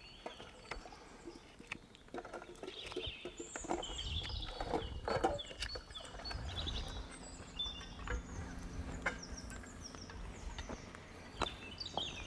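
Wild birds singing in short gliding chirps, over scattered clicks and scrapes of a knife cutting a mouthpiece into a fresh, moist willow stick. A low rumble rises in the middle.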